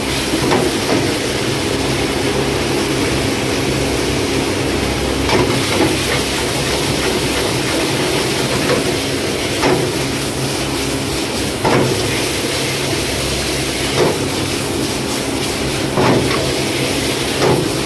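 A gas wok burner running with a steady rush, food sizzling in the wok, and a metal ladle clanking and scraping against the wok every two seconds or so as chicken, capsicum and onion are stir-fried.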